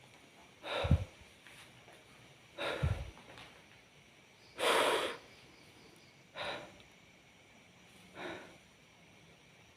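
A man breathing heavily close to the microphone: five noisy breaths about two seconds apart, the one near the middle the loudest, the first two with a low thump of breath hitting the microphone.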